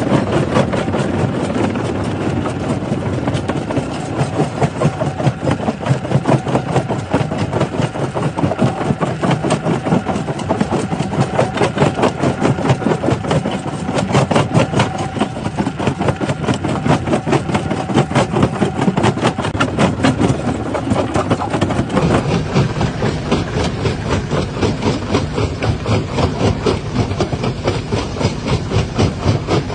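Jaw-type stone crusher running and crushing rock: a continuous heavy machine drone with a rapid, even pulsing from the working jaws.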